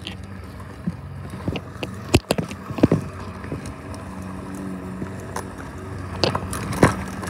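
Handling noise from a handheld camera being carried and jostled: scattered sharp knocks and rubbing, the loudest about two, three and seven seconds in, over a steady low hum.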